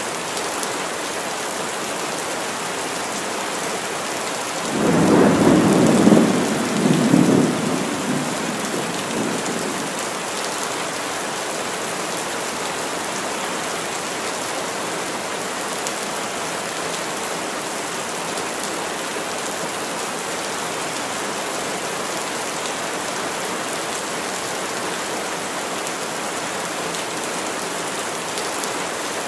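Heavy rain falling steadily on trees, with a roll of thunder about five seconds in that swells twice and fades away over about five seconds.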